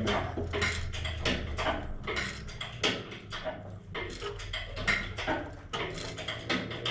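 Hand-pumped hydraulic engine hoist lifting an engine: light metallic clicks and knocks, several a second and irregular, from the pump strokes and from the chain and engine shifting.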